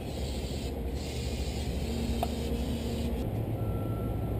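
Aerosol brake cleaner spraying from a can in a steady hiss, with a brief break just under a second in, stopping about three seconds in, over a low steady rumble.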